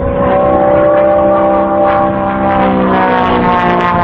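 Aerobatic biplane's piston engine and propeller running in flight, a steady droning tone that sags slightly in pitch over the first couple of seconds and then holds.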